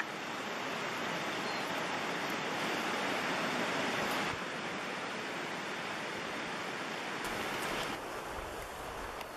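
Steady rushing hiss, even from low to high, with no distinct events; it drops a little about four seconds in and again near the end, where a low rumble joins it.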